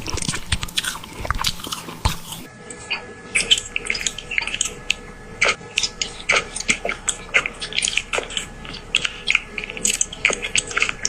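Close-up munching: crunchy biting and chewing, many short crisp crunches in quick succession. The sound changes character about two and a half seconds in, as a different run of chewing takes over.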